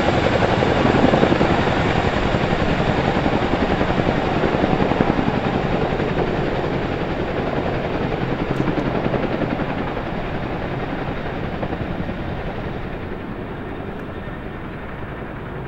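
Rotor noise of several Army helicopters, among them a tandem-rotor CH-47 Chinook, lifting off and flying away. The steady rotor chop fades gradually as they leave.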